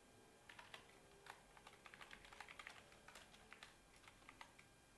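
Faint typing on a computer keyboard: a run of quick, irregular keystrokes that stops shortly before the end.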